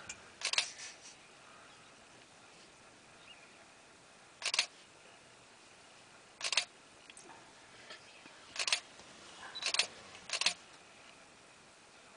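Six sharp shutter clicks from a single-lens reflex camera. They come several seconds apart at first, then closer together near the end.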